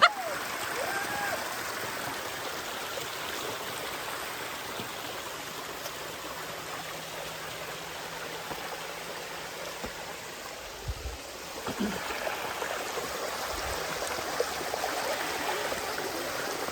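Waterfall: a steady rush of falling, splashing water close by.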